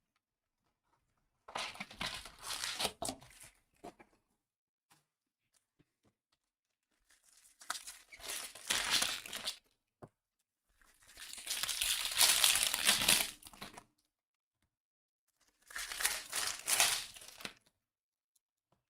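Plastic trading-card packaging being torn open and crinkled, in four separate bursts of two to three seconds each.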